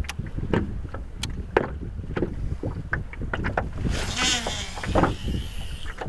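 Small waves knocking and slapping against a boat's hull in an irregular run of short knocks, with a brief buzzing whir about four seconds in.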